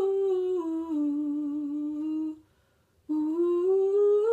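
A woman singing a slow vocal run on an "ooh" vowel, each note held separately: the line steps down the scale, breaks off briefly about two and a half seconds in, then a new run starts low and climbs step by step. It is a riff slowed right down as a practice exercise so every note in between is sung cleanly.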